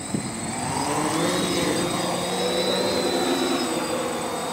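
Quadcopter's electric motors and propellers spinning up from the water surface, the whine rising in pitch over the first second or so and then holding steady as the drone lifts off.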